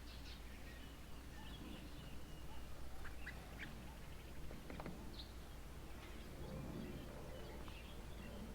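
Faint, scattered bird chirps and short calls from birds around a feeding table, over a steady low hum.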